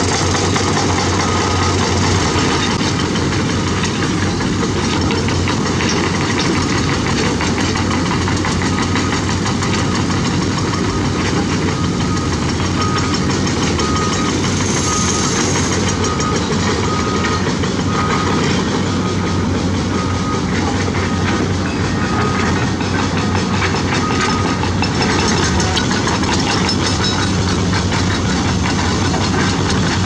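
Many diesel hydraulic excavators and crawler bulldozers working at once: a steady engine din with constant clanking of steel tracks and rock. A warning alarm beeps about once a second through most of it and stops a few seconds before the end.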